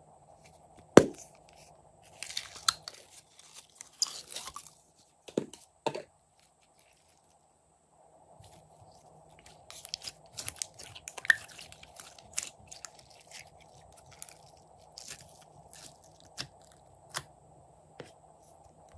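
Thick pink slime squeezed and worked by hand, giving sticky clicks, crackles and small pops. A single sharp click about a second in is the loudest sound.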